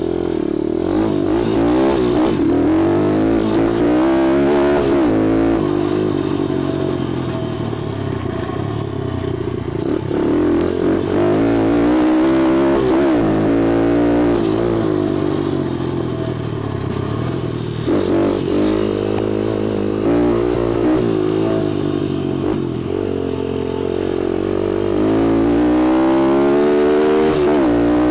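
A 140cc four-stroke single-cylinder pit bike engine revving up and easing off again and again while riding, its pitch climbing under throttle and dropping back between pulls. Strong wind buffets the microphone.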